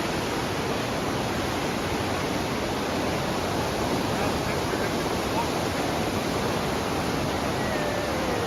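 Steady rushing of flowing water from a stream, an even hiss with no breaks.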